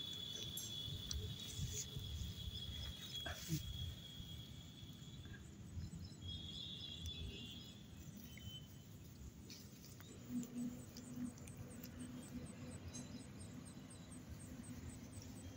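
Faint outdoor ambience of insects: a steady high trill for the first four seconds or so, a short burst of it again a little past the middle, and fast, evenly repeated high ticking through the second half, over a constant low rumble.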